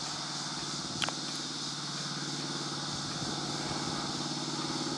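An engine running steadily at one constant pitch, with a single sharp click about a second in.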